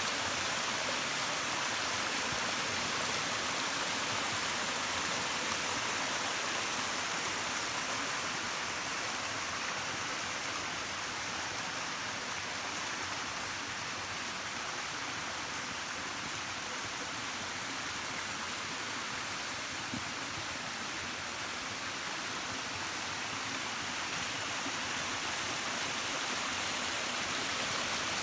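Small forest creek tumbling over rocks in a little cascade: a steady rush of water that eases slightly in the middle and comes back up near the end.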